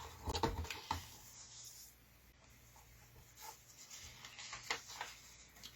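Rustling and crinkling of a comic-book polybag and its paper inserts being handled as the contents are pulled out. There is a dense burst of crinkles and light taps in the first second, then scattered softer rustles.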